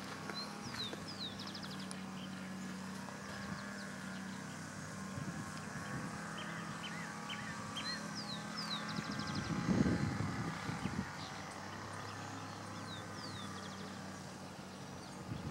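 Several birds calling, with repeated short falling whistles and chirps, over a steady low hum. A louder rustle of footsteps comes about ten seconds in.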